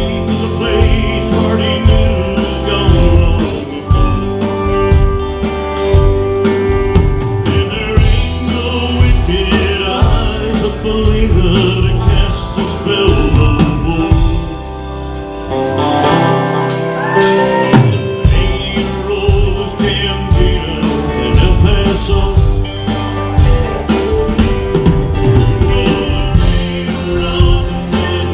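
A live band playing through a PA: electric guitars, electric bass, drum kit and keyboard. About halfway the bass and drums drop out briefly, then the full band comes back in.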